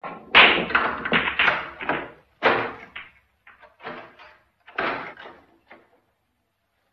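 Pool balls breaking from the rack: a loud clack about a third of a second in, then a quick rattle of balls striking each other. Further sharp ball strikes follow around two and a half and five seconds in, with smaller clicks between them.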